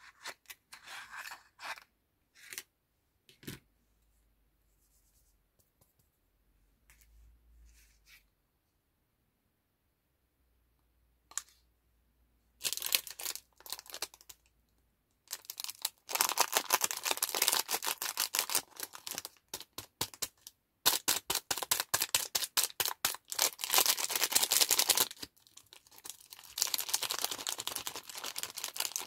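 Plastic lollipop wrapper crinkling and tearing as fingers peel it open, in long runs of dense crackling through the second half, after a stretch of only a few faint crackles.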